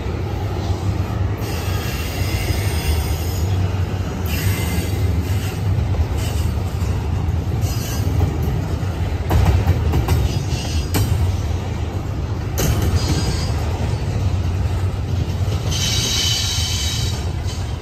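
Double-stack intermodal freight train rolling past, its steel wheels making a steady low rumble on the rails. High wheel squeal comes and goes in stretches, strongest near the start and again near the end, with a few sharp clacks over rail joints near the middle.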